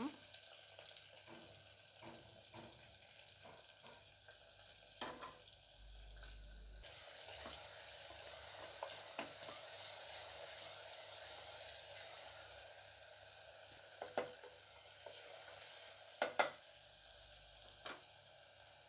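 Onions frying in hot oil with cumin seeds, curry leaves and green chillies, sizzling steadily while being stirred, with a few sharp clicks of the stirring spoon against the pan. The sizzle grows clearly louder about a third of the way in.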